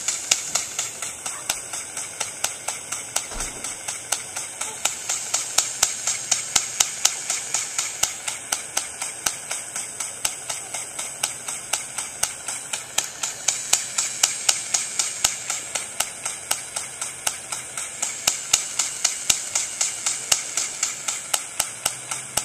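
Airsoft pistol being fired over and over in steady semi-automatic shots, about three sharp clicks a second.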